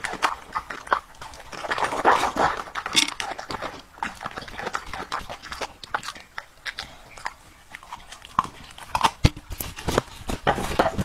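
A dog crunching and chewing raw vegetables, red cabbage and broccoli: a run of short, sharp crunches and bites.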